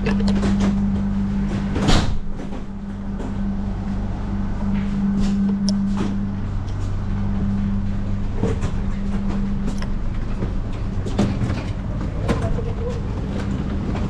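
Steady low hum inside a stopped train carriage, with scattered knocks, clicks and footsteps as passengers walk through the vestibule and out the doors with their bags and suitcases. One sharp knock about two seconds in is the loudest sound, and the hum fades out about two-thirds of the way through.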